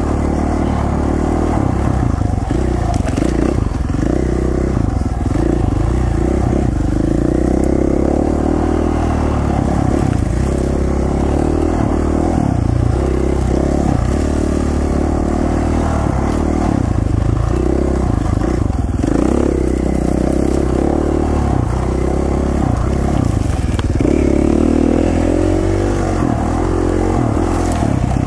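Single-cylinder four-stroke KTM 450 XC-F dirt bike engine running on and off the throttle, its revs rising and falling continually as it climbs and turns along dirt single track.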